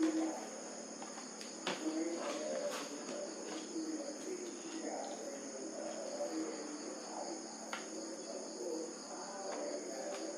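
A few faint clicks from the plastic clips of a laptop's bottom case being pried at with a guitar pick. Under them runs a steady high-pitched whine.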